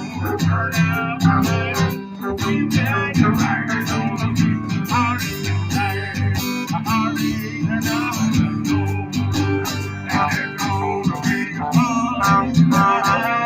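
Small live band playing an instrumental: acoustic guitars strummed and picked over a bass line, with a wavering lead melody on top.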